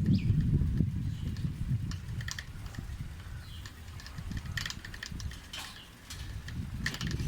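Wind buffeting a phone's microphone while riding a bicycle: a steady low rumble, with a few scattered light clicks.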